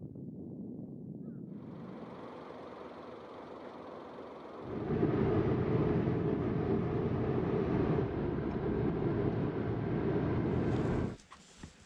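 Road traffic: the low steady rush of car tyres and engines on a road, growing much louder about five seconds in and cutting off suddenly near the end.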